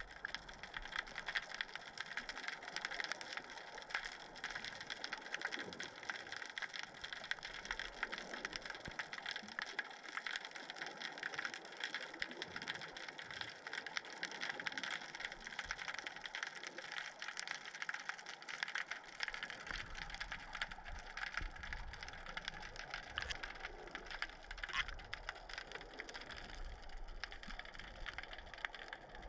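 Underwater noise picked up by a submerged camera in a strong current: a steady crackling hiss, joined by a low rumble of moving water about twenty seconds in.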